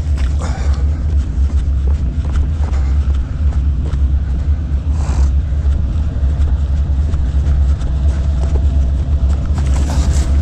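Freight train rolling past on the tracks: a steady low rumble with scattered knocks and rattles.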